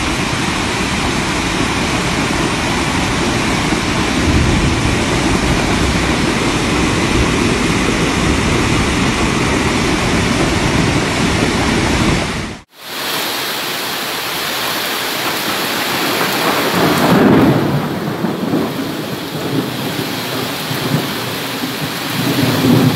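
Loud, steady roar of a muddy flash flood torrent rushing down a street in a heavy rainstorm. The sound drops out for a moment about halfway through, then goes on as heavy rain and running floodwater.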